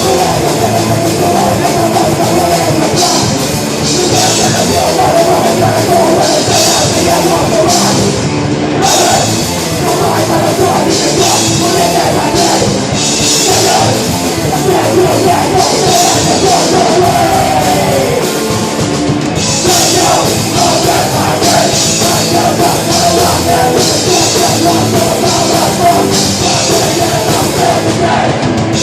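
Live heavy hardcore band playing loud: distorted guitars, bass and pounding drums with crashing cymbals, heard as a rough audience recording.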